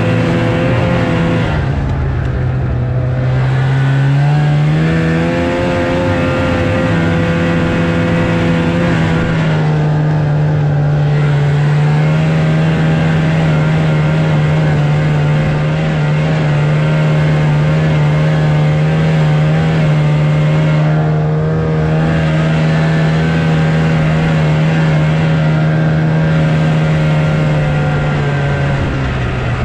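Snowmobile engine running under way, easing off about two seconds in, picking back up around five seconds, then holding a steady pitch.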